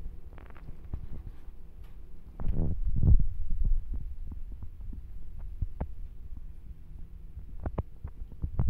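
Several kittens eating cat food together: many quick, wet chewing and lip-smacking clicks over a low rumble, which swells louder for about a second some two and a half seconds in.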